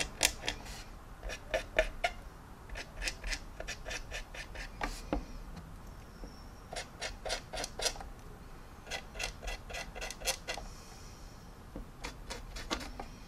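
Small paintbrush dabbing and stroking oil paint onto the plastic surface of a scale model kit: faint scratchy ticks in quick runs of several, with short pauses between runs.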